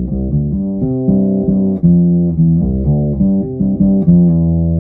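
Ibanez SRH505F fretless acoustic-electric bass played through its piezo pickup with the tone control rolled all the way back: a line of plucked notes, about three a second, with a much darker sound.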